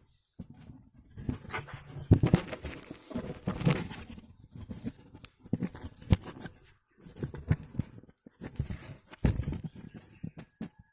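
Stick-welding arc from a homemade transformer arc welder, crackling and sputtering in uneven spurts, with brief breaks where the arc stops and is struck again.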